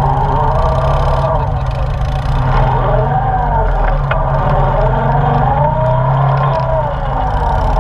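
ATV engine running close by on a rough dirt trail climb, its revs rising and falling several times as the throttle is worked.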